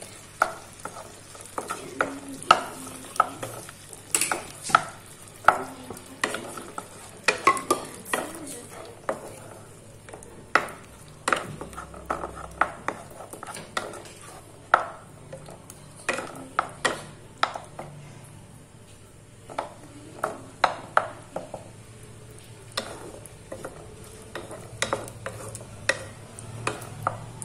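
Wooden spatula stirring thick chicken curry in a non-stick pan to mix in yogurt and chili powder: irregular knocks and scrapes of the spatula against the pan over a light sizzle.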